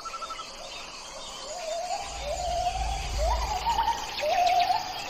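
A gibbon whooping in a series of rising calls, about one a second, growing louder and quicker towards the end, over faint forest insect and bird ambience. A low rumble swells briefly about halfway through.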